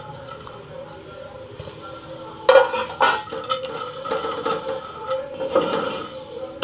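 Chopped cashews, almonds and pistachios sizzling as they brown in a little oil in a nonstick kadhai. From about two and a half seconds in, a wooden spatula stirs and scrapes them around the pan in a run of strokes.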